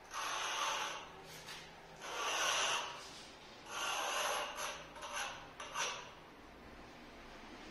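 Hand rubbing strokes along a granite strip, stone scraping under the hand: three long strokes of about a second each, then four short quick ones.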